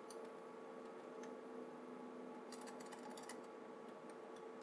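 Keys being typed on a computer keyboard: a few single keystrokes, then a quick run of them about two and a half seconds in, entering a password at a login prompt. A steady hum of a few tones sits under the clicks.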